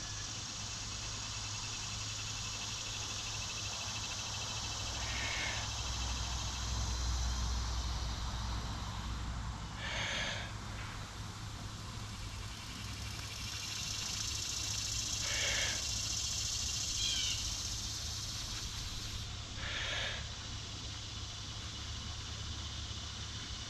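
A person blowing long, steady breaths into a smouldering tinder bundle to coax a hand-drill ember into flame, with a quick sharp inhale about every five seconds.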